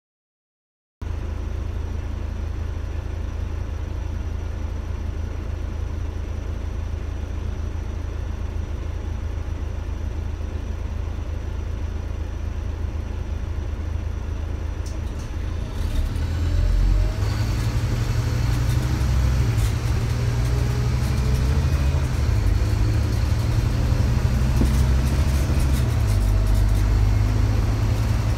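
Scania Omnidekka double-decker bus's Scania DC9 nine-litre five-cylinder diesel idling steadily, heard from inside the saloon. About sixteen seconds in it revs up as the bus pulls away. Its note steps down twice as the ZF automatic gearbox changes up.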